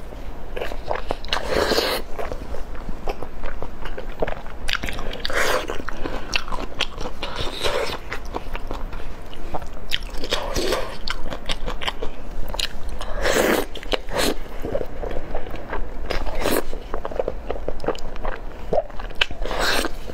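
Close-miked biting and chewing of braised beef tendon in thick sauce: a steady run of wet mouth clicks, with a louder bite every few seconds.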